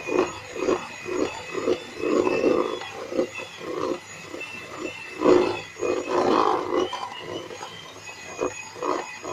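Electric hand mixer beating an egg into creamed butter and powdered sugar. A steady motor whine runs under uneven churning pulses, two or three a second, as the beaters work the thick mixture.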